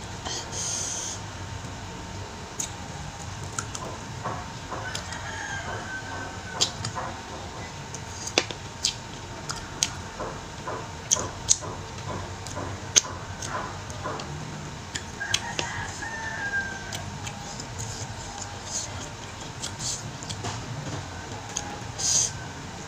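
Close-up eating sounds of a person biting, chewing and sucking meat off goat bones: wet mouth smacks and sharp clicks scattered throughout. A drawn-out pitched call sounds twice in the background, about five and fifteen seconds in.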